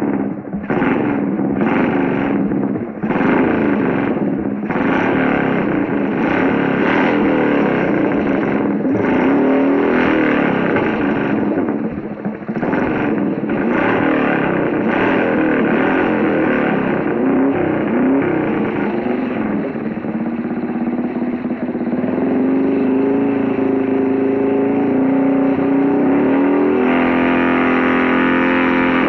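Motorcycle engine revving in a series of throttle blips over the first dozen seconds, then running more steadily, with its pitch stepping up near the end.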